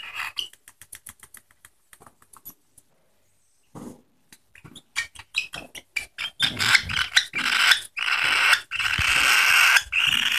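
Hungry young albino budgerigar being spoon-fed: quick beak clicks and smacking as it takes the food, then, about six seconds in, loud rasping begging calls that run almost without a break to the end.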